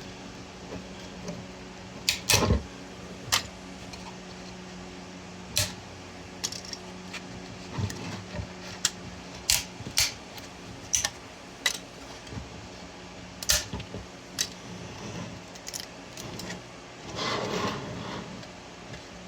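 PLA support material being snapped and pried off a 3D print: a dozen or so sharp, irregular plastic clicks and cracks, with a longer scraping rustle near the end.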